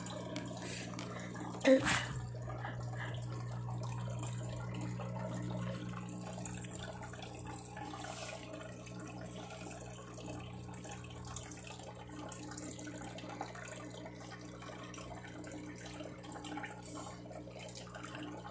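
Aquarium filter running with a steady low hum and water trickling and dripping into the tank. One sharp knock about two seconds in.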